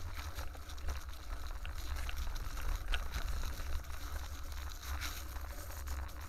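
Wind rumbling on the microphone of a moving camera, with a continuous crackling and rattling as it travels along a leaf-covered path.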